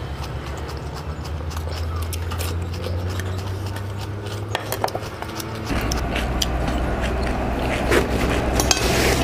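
Forks and fingers clinking and scraping on ceramic plates as two people pick at and eat singju salad. Short clicks come in small clusters about halfway through and again near the end, over a steady low hum that shifts in tone a little past halfway.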